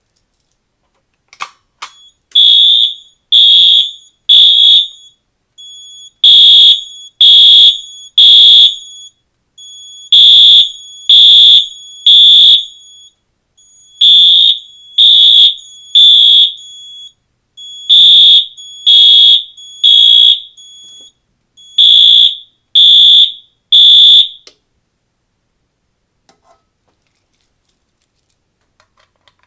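Wheelock MT-24 multitone fire alarm horn sounding the code-3 temporal pattern: six rounds of three short, loud, high-pitched blasts, each round separated by a pause. The horn stops about 24 seconds in.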